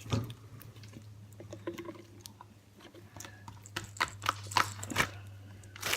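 Slime being kneaded and mixed by hand: small sticky clicks and crackles, coming thicker in the second half, over a low steady hum.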